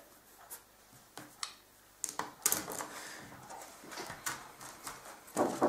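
Papers and folders handled on a desk: scattered clicks, taps and paper rustles, busier from about two seconds in, then two louder knocks on a door near the end.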